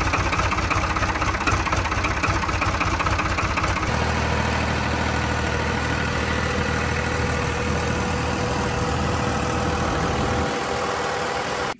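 Ford farm tractor's engine running steadily as the tractor drives. About four seconds in the engine sound changes abruptly to a steadier, deeper drone, and it cuts off sharply at the end.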